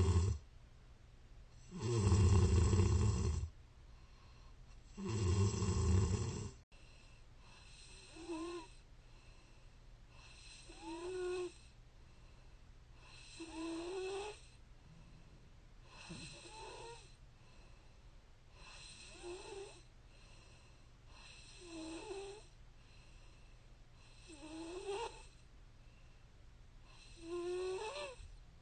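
A woman snoring in her sleep. First come loud, rough snores about every three seconds. After an abrupt break about seven seconds in, quieter snores follow on each breath, each with a whistling tone that wavers up and down.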